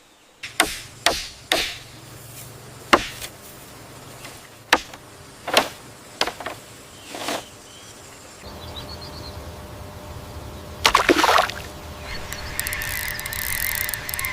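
A series of sharp, separate knocks, roughly one every second or less, over the sound of water. About eleven seconds in comes a louder, rattling cluster of hits, and near the end a wavering high call.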